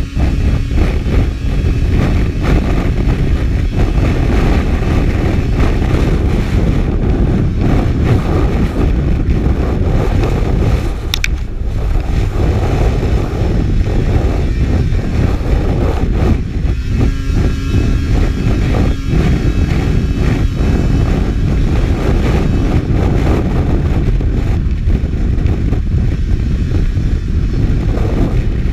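Racing snowmobile running at speed, heard from a GoPro mounted on the sled: a loud, steady engine-and-track drone.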